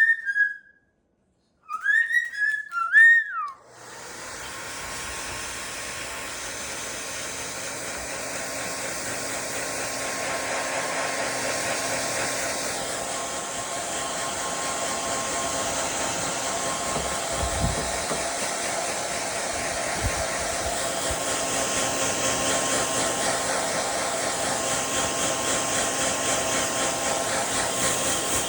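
A handheld blow dryer switches on about four seconds in and runs steadily on the fan setting without heat, its noise slowly growing louder. Before it starts there is a short whistled, rising-and-falling phrase.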